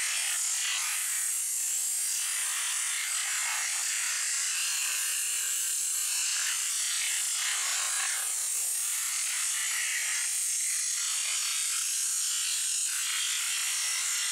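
A pressure washer's high-pressure water jet hissing steadily as it blasts into a raw whole chicken and spatters across concrete.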